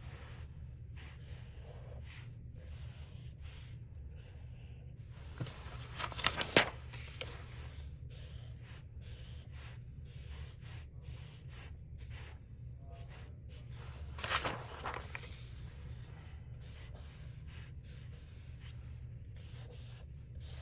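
Black felt-tip marker scratching across paper as lines are drawn, faint, with a steady low hum underneath; two louder strokes come about six and fourteen seconds in.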